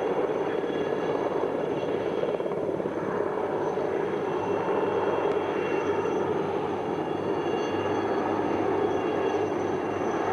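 A formation of four helicopters flying overhead, giving a steady, continuous drone of rotor and engine noise.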